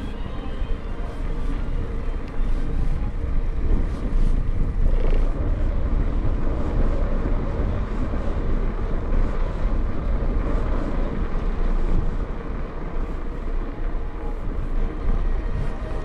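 Rumbling wind and road noise from a moving bicycle, steady throughout.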